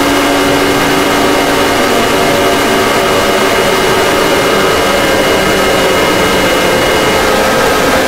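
Electronic emergency alert alarm: a loud, harsh steady drone of several held tones at once over a hiss of noise. A few of the tones shift or drop out about two-thirds of the way through.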